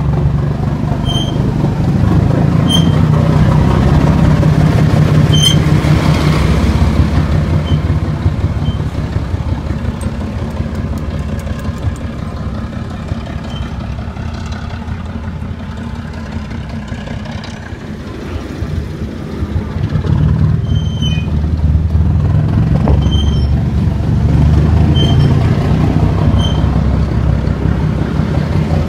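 Class 08 shunter's six-cylinder diesel engine running with part of its silencer removed: a deep, steady rumble that eases off in the middle and builds up loud again after about twenty seconds. Short high chirps sound now and then on top.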